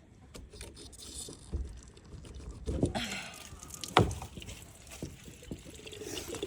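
A garden water hose being handled and drained: clunks and rustling with some water running out, and a sharp knock about four seconds in.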